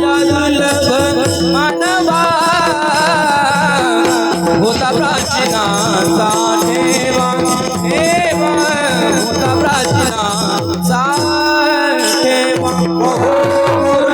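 Kirtan music: a voice singing a wavering, ornamented melody without clear words over a steady held drone, with mridang drumming and rattling hand cymbals keeping the beat.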